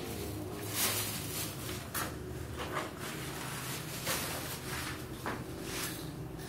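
Handling noise from a phone being moved about: scattered rustles and light knocks over a faint steady low hum.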